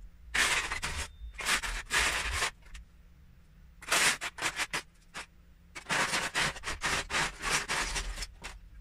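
Loose Lego bricks clattering and rustling as a hand rummages through a plastic storage tub full of them, in three spells of a second or two each.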